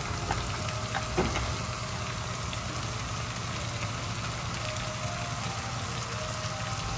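Chopped tomatoes sizzling steadily in melted butter in a frying pan on a gas burner, with a couple of light ticks about a second in.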